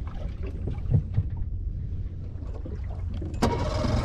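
Small boat at sea: a steady low rumble of wind and water with two knocks about a second in, then about three and a half seconds in a louder, rattling mechanical sound cuts in abruptly.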